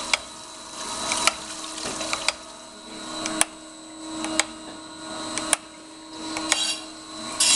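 Hydraulic surface grinder running: the table reverses with a sharp clunk about once a second, and between reversals the grinding of the wheel on the steel swells and fades, over a steady hum from the machine.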